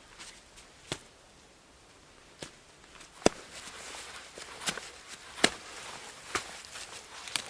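Twigs snapping in a series of sharp cracks about a second apart, the loudest about three seconds in, with leaf litter rustling that grows louder through the second half.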